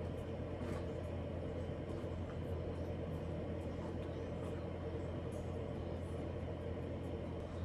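Steady low hum with a faint hiss: room tone.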